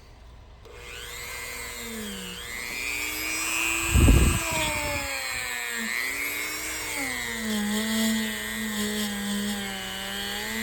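Small electric power tool's motor spinning up about a second in, then running with its whine rising and falling as it is loaded, with a heavy thump about four seconds in.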